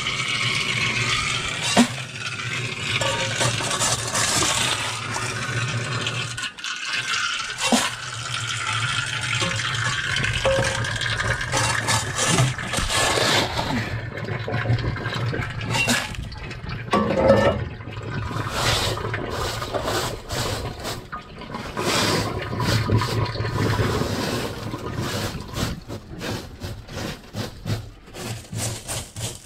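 Wet sapphire wash gravel being scraped and scooped across a round metal sieve screen with a flat steel scraper. Water splashes and drains throughout, and a low steady hum runs underneath. From about halfway, many sharp scrapes and stone clinks follow in quick succession.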